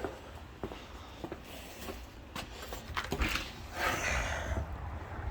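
Footsteps, a short knock or scuff every half second to a second, with a longer scraping rustle about four seconds in.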